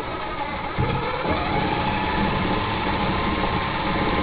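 Cordless drill spinning up about a second in and then running steadily under load, with a slightly rising motor whine, as a 1/8-inch bit drills a pilot hole through the truck's bed floor.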